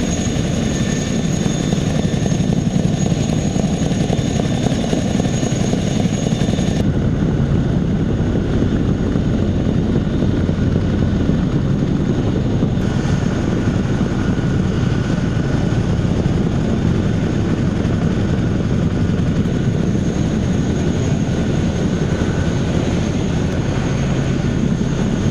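Helicopter running at close range: the rush of turning rotors under a steady high turbine whine, from a CH-47 Chinook tandem-rotor helicopter turning on the ground at first. The sound changes abruptly about 7 and 13 seconds in.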